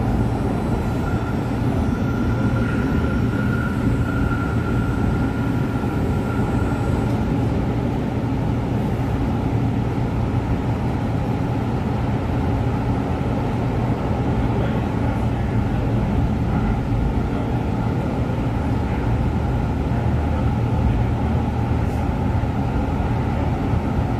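CTrain light-rail car running, heard from inside the passenger cabin: a steady rumble of wheels and motors, with a faint high whine for the first several seconds.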